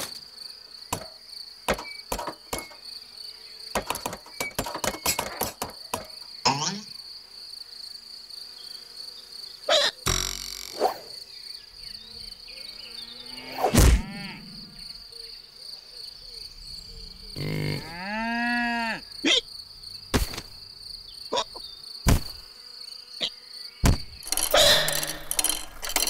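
Cartoon sound effects of a small insect with the hiccups: a steady high insect buzz runs throughout, broken by many sharp hiccup clicks and pops, the loudest a little past the middle. A cow moos once, its pitch rising and falling, about two-thirds of the way in, and a rustling clatter comes near the end.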